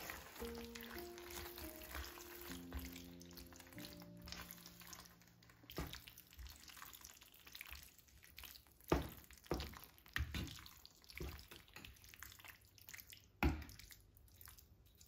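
A wooden spoon stirring thick, creamy tomato-and-tuna penne in a frying pan: wet squelching with several sharp knocks of the spoon against the pan. Soft background music plays at first and stops about five seconds in.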